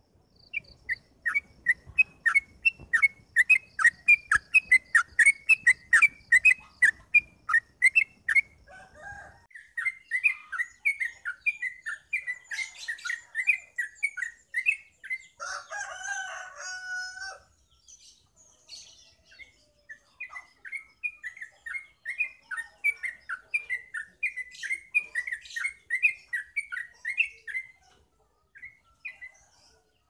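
Yellow-vented bulbul (trucukan) singing long runs of quick repeated notes, about three or four a second, in three bouts with short pauses between. About halfway through, a longer, steadier call from another bird breaks in.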